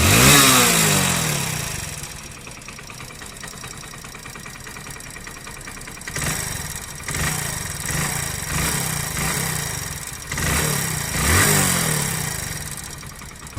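Hero Splendor BS6 single-cylinder motorcycle engine revved, settling to idle, then blipped with the throttle again and again in the second half. It is running with excessive mechanical noise inside the engine, which the mechanic goes on to cure by tappet adjustment.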